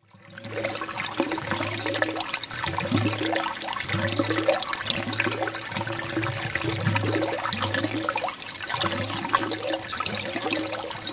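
Water gushing and gurgling as a flood wells up, with a pulsing low rumble underneath; it fades in at the start and fades out at the end.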